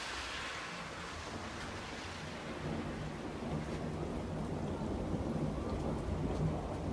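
Thunder rumbling over steady rain; the low rumble builds from about two and a half seconds in.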